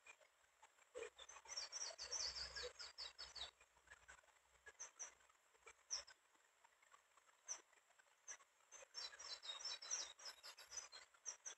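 A bird chirping faintly: two runs of rapid, high chirps, one about a second in and one about nine seconds in, with scattered single chirps between.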